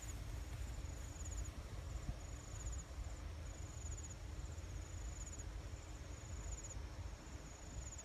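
An insect, cricket-like, trilling high in short pulsed bursts, each about half a second long, about one a second, over a steady low rumble.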